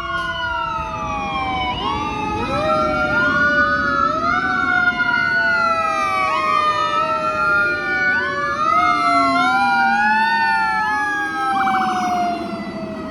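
Fire engine sirens wailing. One siren tone repeatedly rises sharply and slides slowly down, about once a second, over another long, slowly falling wail. A brief fast warble comes near the end, and the sound fades as it finishes.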